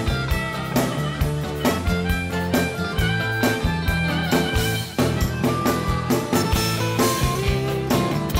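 Rock music in an instrumental passage: a guitar playing held lead notes over bass and a steady drum beat.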